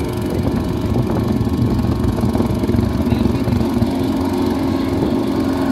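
Small single-cylinder engine of a portable track machine running steadily at constant speed, with no change in pitch.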